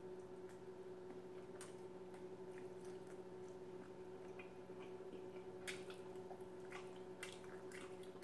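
Faint chewing, mouth clicks and smacks of a person eating fried chicken wings, with a scattering of short sharp clicks, most of them in the second half. A steady low hum runs underneath.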